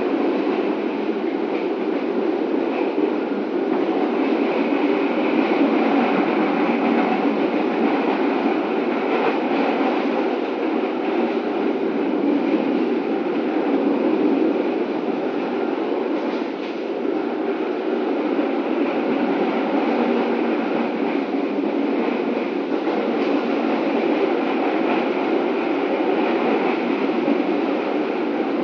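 Passenger train on the move, heard from inside the coach: a steady running noise of the wheels on the rails.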